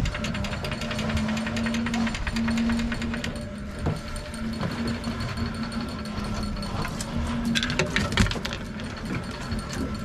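Electric jigging reel on a commercial rockfish boat running with a rapid, even mechanical ticking and a low hum that cuts in and out. Sharp knocks and slaps come about three quarters of the way in, as black rockfish are shaken off the line onto the metal deck.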